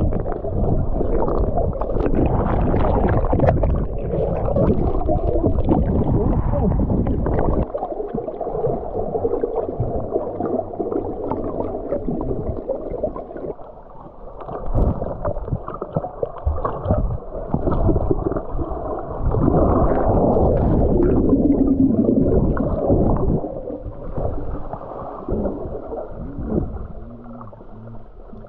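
Muffled underwater sound from a submerged action camera: water sloshing and gurgling around swimmers, everything dull with the high end cut off. It grows quieter in the last few seconds.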